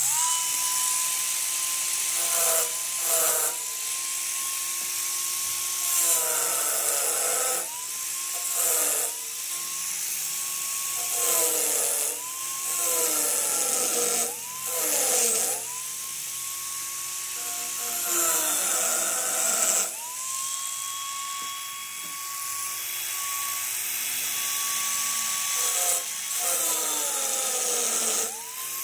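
Handheld electric grinder working metal: a high motor whine that starts abruptly and sags in pitch again and again as it is pressed into the work, then climbs back as the pressure eases, over a steady hiss. It stops for a moment about two-thirds of the way through and spins straight back up.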